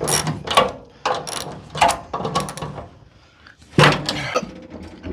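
Ratchet wrench clicking in short repeated strokes, about two a second, as the door hinge bolts are worked. There is a pause of about a second past the middle, then another burst of strokes.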